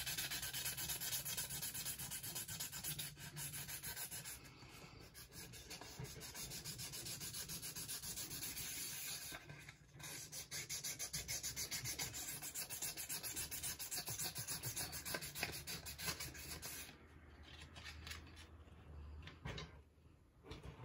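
Sandpaper rubbed by hand in quick back-and-forth strokes over the rusty steel face of a small anvil, scouring off the rust coating. The strokes stop about three-quarters of the way through, leaving only faint handling sounds.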